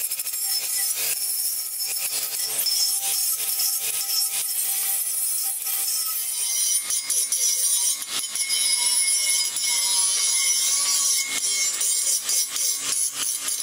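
Cordless angle grinder with an aluminum grinding disc grinding powder coat and cracked metal off a cast-aluminum light pole base. It gives a steady hissing grind whose whine wavers in pitch as the disc is pressed into the metal. The sound changes character about six seconds in.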